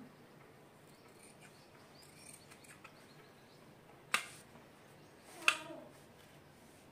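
Two short, sharp clicks about a second and a half apart, the second louder, as a folded cloth strip is handled and laid flat; otherwise a faint hush.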